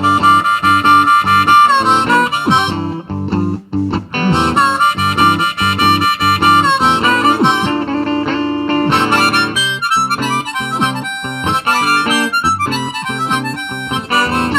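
Blues harmonica solo over guitar accompaniment: long held notes for most of the first half, with a brief break about three seconds in, then quicker, choppy phrases in the second half.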